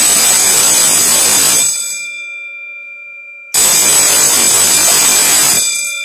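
Electric school gong bell with a chrome dome, its hammer rattling against the dome in bursts of about two seconds, twice, about four seconds apart. Between bursts the dome rings on and fades. The bell scheduler is switching it on and off in repeated ringing cycles.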